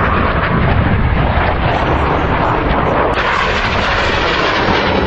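Jet aircraft engine noise from a plane flying past, a loud, steady rushing roar with a deep rumble underneath.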